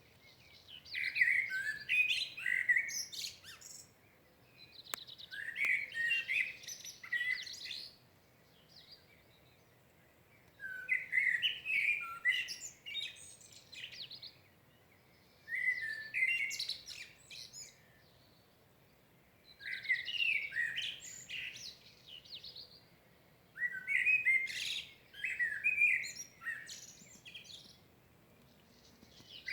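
A songbird singing at dawn in separate varied phrases, each two to three seconds long, with short pauses between them; six full phrases.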